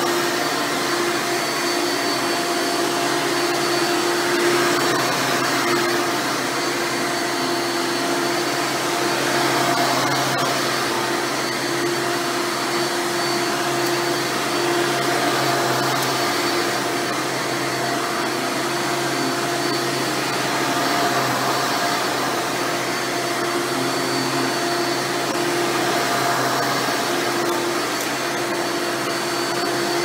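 Hoover Dirt Finder Legacy upright vacuum running over carpet: a steady motor hum with a constant whine, its level swelling slightly every five or six seconds.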